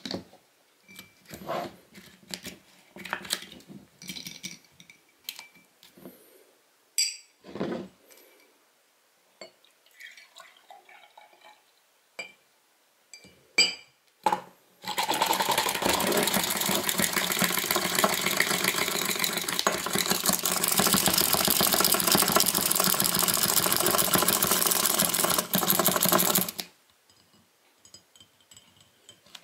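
A handheld electric milk frother whisking milk in a glass mug. It runs at a steady level for about eleven seconds, starting and cutting off suddenly as the milk foams. Before it starts there are scattered clinks and knocks of the glass mug and whisk being handled.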